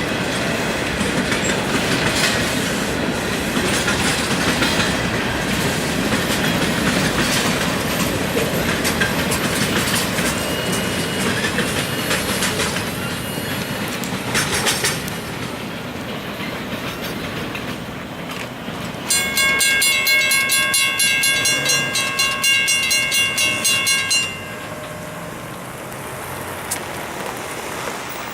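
A freight train's cars roll past, their wheels clicking over the rail joints, and the noise fades after about fifteen seconds. Near the end a level-crossing warning bell rings in quick repeated strokes for about five seconds, then stops suddenly.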